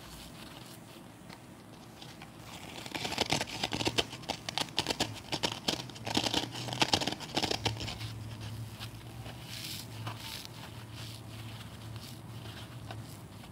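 Kitchen scrub sponges with green abrasive scouring pads, squeezed and bent between the fingers: a dense, crunchy crackling, loudest from about three to eight seconds in, then lighter scattered crackles.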